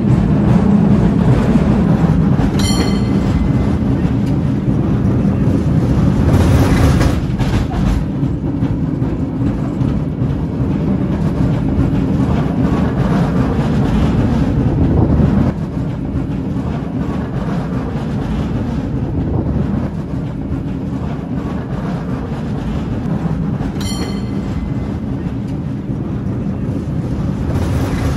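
San Francisco cable car running along its track: a steady, loud rumble and rattle of the car on the rails, easing a little about halfway through. There are two short metallic ringing strikes, a few seconds in and again near the end.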